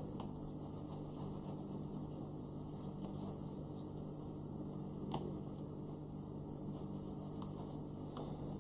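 Faint scratching and rubbing as the flat of a pointed knife presses a thin wooden deck veneer down along the deck edge, with a few light ticks, over a steady low hum.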